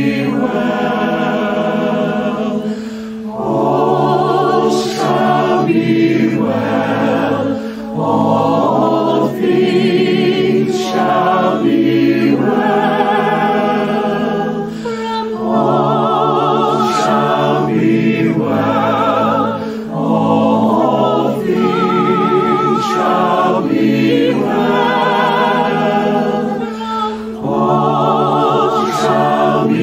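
Mixed choir singing a slow anthem in phrases of about two seconds each, with a soprano descant singing above it with a wide vibrato. A steady low held note sounds underneath throughout.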